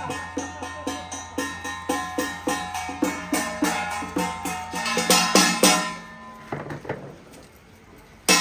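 Percussion music, drums beating a fast, even rhythm of about three to four strikes a second over steady sustained tones. It breaks off about six seconds in and comes back loudly at the very end.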